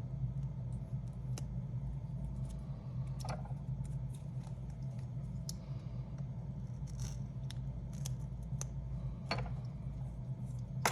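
Scattered light clicks and short scrapes of a small hand tool working on an opened iPad's frame, over a steady low hum.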